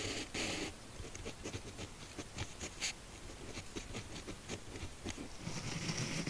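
Fine 0.2 mm M&G gel pen nib scratching across smooth notebook paper in short, quick strokes as characters are written, with brief pauses between strokes.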